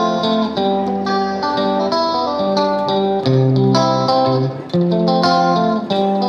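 Background music led by plucked guitar, a run of quick melodic notes over sustained lower notes.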